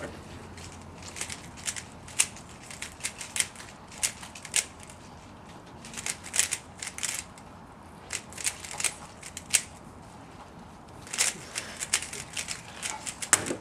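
A 3x3x3 Rubik's Cube being turned fast during a timed speedsolve: rapid plastic clicks and clacks in irregular runs, with short pauses between them.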